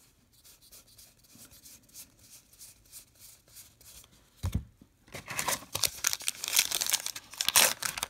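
Foil wrapper of a baseball card pack being torn open and crinkled in the hands, loud and crackly from about five seconds in. Before that come faint ticks of cards being handled and a soft bump.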